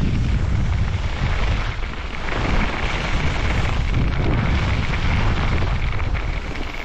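Wind rushing and buffeting the microphone of a skier's camera on a downhill ski run, a loud, steady low rumble over the hiss of skis sliding on snow.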